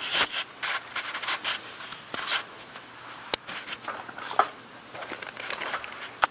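Handling noise from a handheld camera with a magnifying lens held to it: irregular rubbing and scratching, with a sharp click about three seconds in and another near the end.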